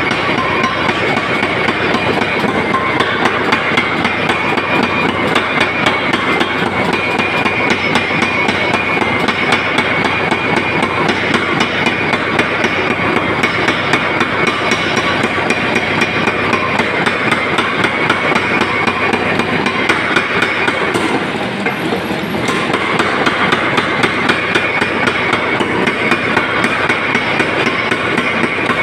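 Vulkan mechanical power hammer pounding steel in a rapid, continuous run of blows while forging a spade, easing off briefly about three-quarters of the way through before carrying on.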